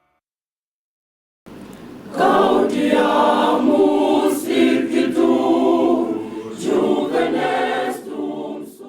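A choir singing, with many voices together and no clear instrumental backing. It comes in after about a second and a half of silence and fades near the end.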